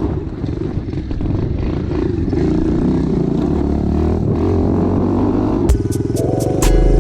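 Dirt bike engine running while riding off, its pitch wandering up and down with the throttle. Music with a regular beat comes in near the end.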